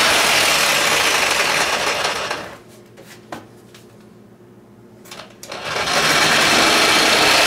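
Corded reciprocating saw cutting through a laminate (Formica) countertop and its wood base at the last corner of a sink cutout. It runs steadily, stops for about three seconds after two and a half seconds with a few clicks, then starts up again near the end.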